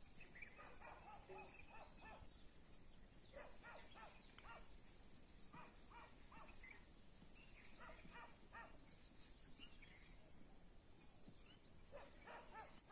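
Near silence with faint, scattered bird calls: short calls coming in little runs, over a faint steady hiss.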